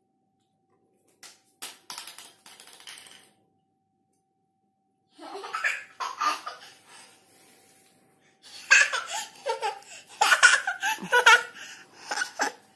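A toddler laughing in bursts that are loudest and most continuous in the last four seconds, with a few short knocks in the first three seconds.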